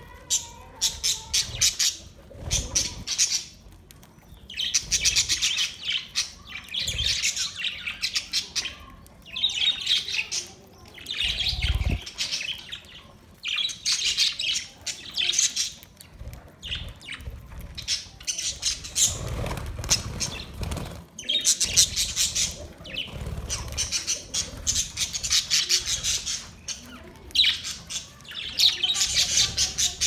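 A flock of budgerigars chattering and squawking in repeated bursts of a second or few, with short pauses between, and a few low thumps here and there.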